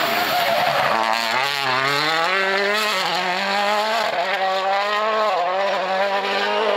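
Toyota Yaris WRC rally car's turbocharged four-cylinder engine accelerating hard away from a tight bend. Its note climbs through the gears, dipping briefly at each shift about three and five and a half seconds in.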